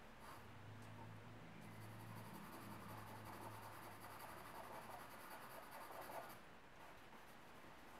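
Faint scratching of a charcoal pencil stroking across drawing paper, from about a second and a half in until about six seconds in.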